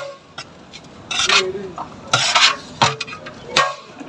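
Biryani being scooped with a cup and packed onto plates on a metal serving tray: two short scraping sounds of rice and cup against the metal, and a few sharp knocks of the cup on the tray and plates.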